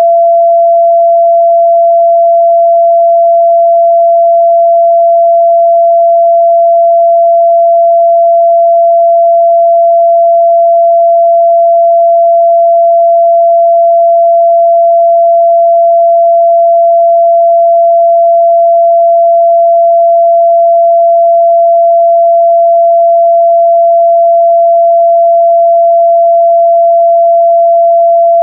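A steady, loud 678 Hz pure sine test tone, one unchanging pitch with no overtones, used for checking speaker and headphone response.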